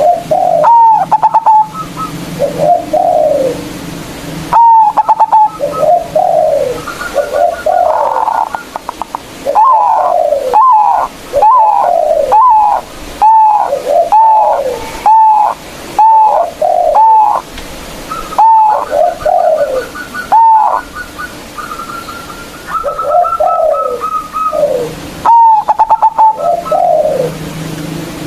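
Zebra dove (perkutut) cooing loudly and over and over: a long series of short coos, many falling in pitch, linked by quick stuttering notes.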